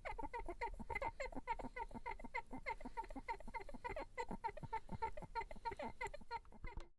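A rapid run of short, high squeaks, several a second, each bending in pitch, which stops just before the end.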